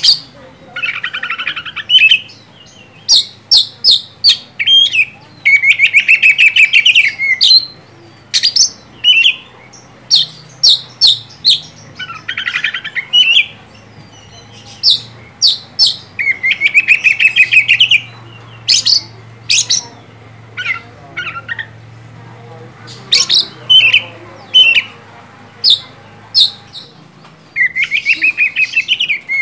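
Oriental magpie-robin singing loudly: sharp, high separate notes mixed with dense trilled phrases, with a sparser lull in the last third.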